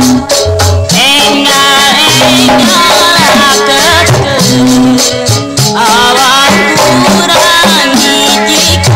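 Sundanese jaipongan music from a cassette recording: a gamelan ensemble driven by kendang drum strokes, with a sliding, bending melody line over it.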